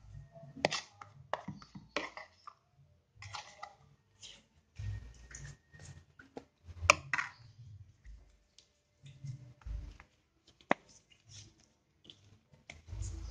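Kitchen handling sounds: a metal spoon scraping and tapping a bowl, and banana leaves rustling as they are folded into a parcel, with scattered clicks and low knocks. The loudest is a sharp click about seven seconds in.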